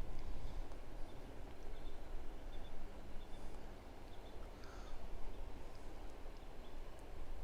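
Outdoor river ambience: a steady low rumble with a few faint, high bird-like chirps in the first half.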